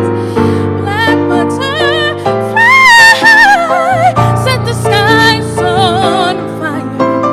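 Piano accompanying a solo singer who holds long notes with wide vibrato, climbing to the loudest, highest note about three seconds in.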